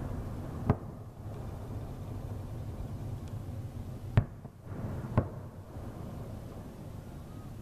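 Aerial fireworks bursting: three sharp bangs, one about a second in and two more about four and five seconds in, over a low steady background rumble.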